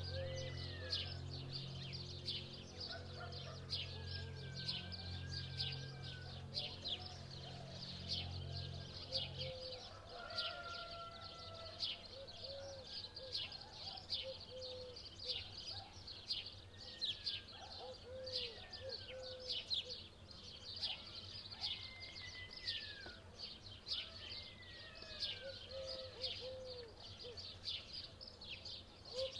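Songbirds singing together: dense high chirping all the way through, with whistled gliding phrases and soft, low coos repeated in short runs. A low steady hum sounds underneath for the first ten seconds or so, then stops.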